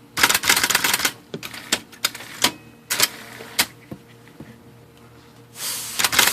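IBM Selectric typewriter mechanism clattering as it is cycled with the motor on, to work its freshly flushed tilt and rotate pulleys: a quick run of clacks in the first second, then scattered single clacks. Near the end a steady hiss sets in under more clacking.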